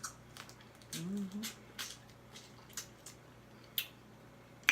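Close-miked eating sounds: a series of irregular sharp, wet mouth clicks and smacks, with a short hummed "mm" about a second in.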